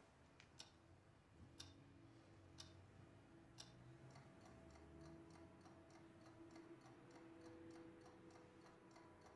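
Faint clock ticking, once a second at first, with a quicker, even ticking joining about four seconds in. Soft sustained musical notes sound underneath.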